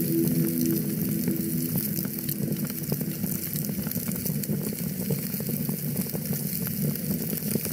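Wood fire in a fireplace crackling steadily with many small pops. The last held notes of background music fade out in the first two seconds.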